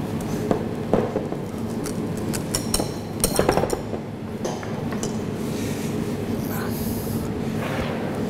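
Metal balloon whisk beating thick pastry cream in a glass bowl, its wires clinking and knocking against the glass in irregular strokes, over a steady low hum.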